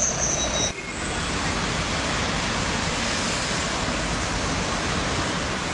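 Street sound that cuts off a little under a second in, giving way to a steady, even rushing noise of road traffic as heard from a moving car.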